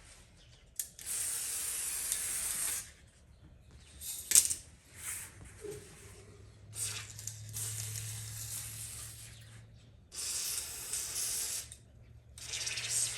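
WD-40 aerosol can spraying in four bursts of about two to three seconds each along the metal screen frame. A sharp knock sounds a little over four seconds in.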